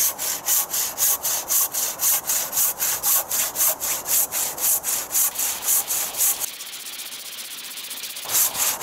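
Hand saw cutting through a wet log, rasping back and forth at about three strokes a second. About two-thirds of the way in, the strokes turn quieter and finer for a couple of seconds, then two loud full strokes return near the end.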